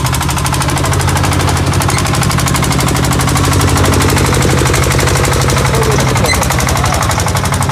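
Single-cylinder diesel engine of a paddy-field boat tractor running steadily under load, a fast, loud string of exhaust pops, as it drives the paddle wheels through flooded mud.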